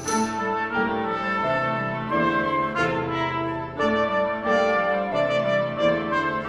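Chamber ensemble of flute, clarinet, trumpet, violin and mallet percussion playing sustained chords, with a new chord about every second or so and the trumpet prominent.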